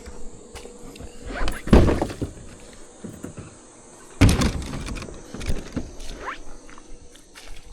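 Two heavy thuds about two and a half seconds apart, each followed by scuffing, with smaller knocks between: footsteps and gear bumping as someone clambers along on foot.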